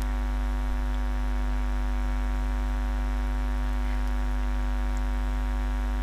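Steady low electrical hum with many evenly spaced overtones, unchanging throughout, typical of mains hum picked up by the recording setup.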